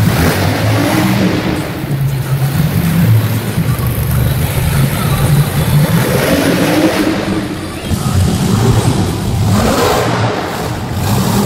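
Monster truck engines running and revving loudly as several trucks drive around a dirt floor. Near the end one truck jumps a pile of crushed cars, with a surge of engine noise.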